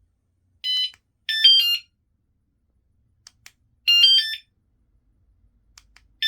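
Noeullim 3.0 Pro bicycle anti-theft alarm giving short electronic chirp signals, each a quick run of high stepping notes, repeated several times with pauses between, as its remote's lock and unlock buttons are worked. A few faint clicks fall between the chirps.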